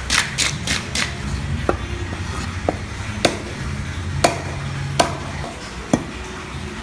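A large fish being scaled with quick scraping strokes for the first second, then a heavy cleaver chopping through it on a wooden block: six sharp chops, about one a second.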